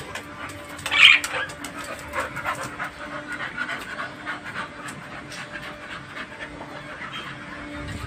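Dog panting, with one louder, sharp high-pitched sound about a second in.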